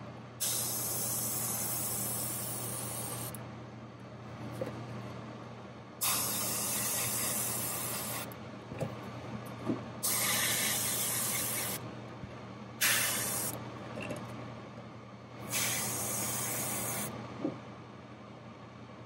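Airbrush spraying paint in five separate bursts of hiss, from about half a second to three seconds long, as the trigger is pressed and released. A steady low hum runs underneath.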